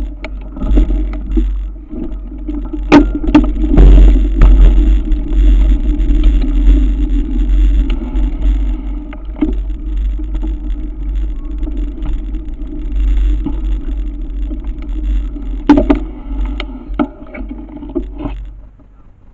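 Mountain bike riding over a gravel and dirt track, heard through a handlebar-mounted camera: constant wind and vibration rumble with tyre noise, and sharp knocks and rattles from bumps. The noise drops away near the end.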